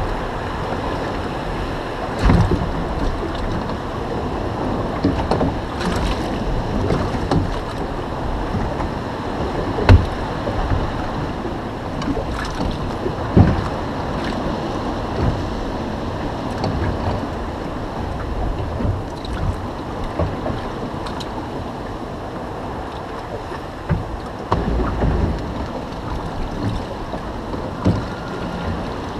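Wind buffeting the microphone over water lapping against a small boat's hull, with a few sharp knocks, the loudest about ten seconds in and again a few seconds later.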